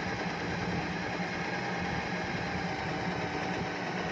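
Usha Janome Dream Stitch electric sewing machine's built-in motor running steadily under the foot pedal, sewing a fine straight stitch on cloth with an even hum.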